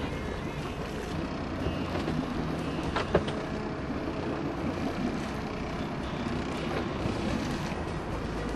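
Sportfishing boat's engine running steadily under wind and water noise, with one sharp click about three seconds in.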